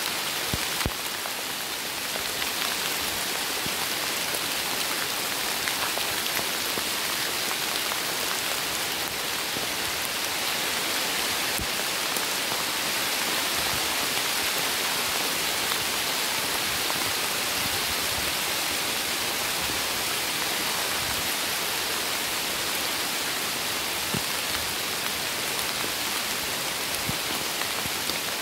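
Steady rain falling on the foliage and leaf litter of a chestnut wood, an even hiss with the odd faint drip.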